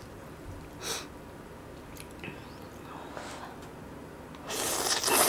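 A person eating Buldak spicy instant noodles: faint chewing and mouth sounds, then about four and a half seconds in, a loud, hissing slurp as a mouthful of noodles is sucked in.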